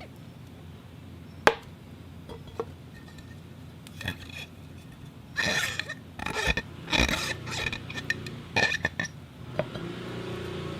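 Crystal glass clinking and ringing, played as foley for animal sounds: one sharp clink about a second and a half in, a few lighter clicks, then several short bursts of ringing tones over the second half.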